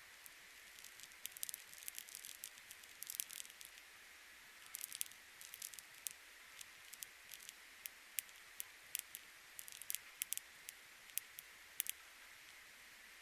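Faint, irregular clicking and crackling, some clicks coming in quick clusters, over a low steady hiss.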